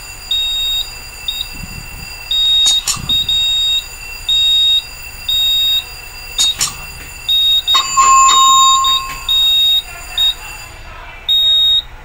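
Fire alarm control panel's buzzer sounding in alarm: a high beep about once a second, each about half a second long. A couple of clicks and a brief lower beep about eight seconds in come from the panel being operated.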